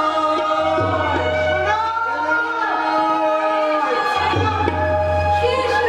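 Singers in a stage musical singing a melodic song with drum accompaniment. Low drum strokes enter about a second in and again around four seconds in.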